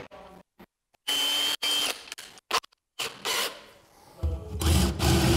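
Power drill running in several short bursts, one a steady high whine of about half a second, broken by abrupt cuts and knocks.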